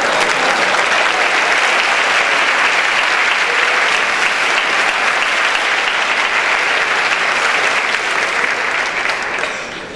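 A large theatre audience applauding steadily, dying down near the end.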